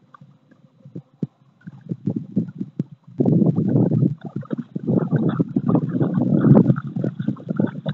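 Gusty low rumble of wind buffeting the microphone, loudest from about three seconds in, with the splashing of a giant schnauzer wading out of shallow lake water.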